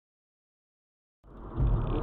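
Dead silence, then about a second in the steady road and engine noise of a car driving, heard from inside the cabin, cuts in suddenly and swells.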